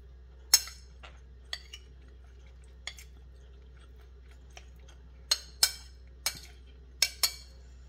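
Metal spoon clinking and scraping against a ceramic plate while scooping rice: about nine sharp clinks at irregular intervals, the loudest about half a second in and a quicker run of them in the last three seconds.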